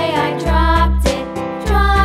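Cheerful children's background music with a steady beat, held bass notes and a bright melody.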